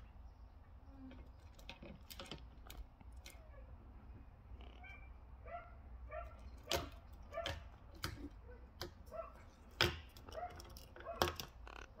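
Quaker parrot bathing in a bucket of water, with sharp splashes scattered through. From about five seconds in, a run of short calls repeats two or three times a second behind it.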